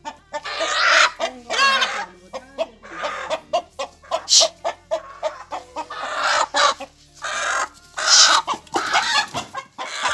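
Chicken clucking and squawking in quick, irregular calls while held upside down by its legs.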